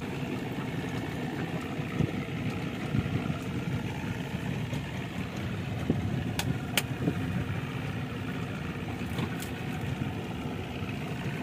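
Boat engine running steadily at idle, with two sharp clicks about six and a half seconds in.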